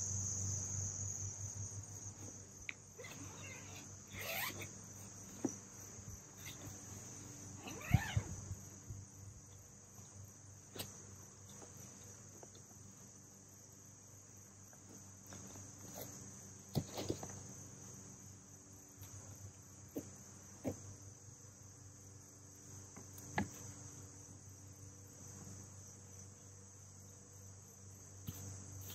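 Steady high-pitched chirring of insects throughout, with scattered soft knocks and rustles of portable folding solar panels being taken out of their carrying cases and unfolded on the grass.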